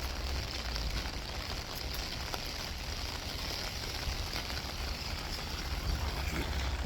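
Rain and road traffic: a steady low rumble with a hiss over it, and a sharp knock right at the end.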